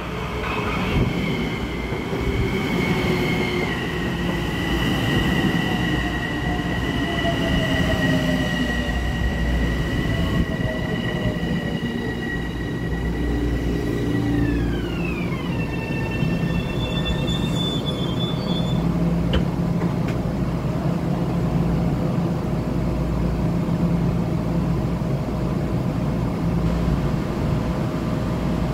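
Metro-North M7A electric multiple-unit train pulling into the platform with a rumble of wheels on rail and a high whine that holds steady, then drops sharply in pitch as the train brakes to a stop about halfway through. It then stands at the platform with a steady hum.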